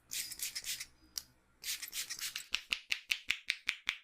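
Head massage by hand: fingers rubbing and scratching through hair and scalp in two short spells, then, about two and a half seconds in, a fast, even run of sharp hand-strike pops, about five a second.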